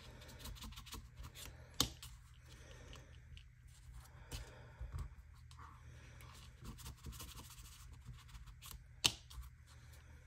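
Faint rustling and scraping of cardstock and paper die-cuts being handled, with a pointed craft tool scraping under a piece to break up its adhesive. Short taps and clicks throughout, the sharpest about two seconds in and again about nine seconds in.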